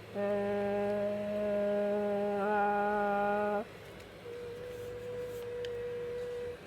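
A voice humming one long, steady note for about three and a half seconds, stopping suddenly. It is followed by a quieter, higher steady tone held for about two seconds.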